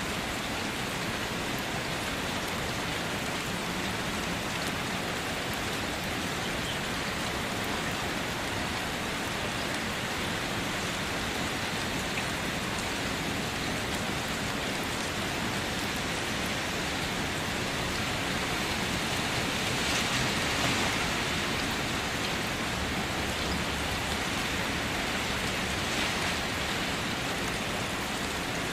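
Steady rain falling, a dense even hiss with scattered drop ticks, swelling slightly a little past two-thirds of the way through.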